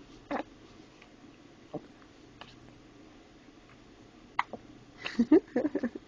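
A 4-month-old baby hiccuping: short, sharp hics spaced a second or more apart, with a run of several quicker sounds near the end.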